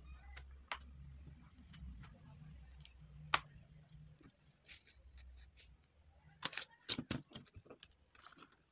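Hands handling a paper bookmark and a pen on a tabletop: light clicks and taps, one sharp tap about a third of the way in, and a cluster of knocks and paper rustles about three quarters through. A steady high-pitched hiss runs underneath.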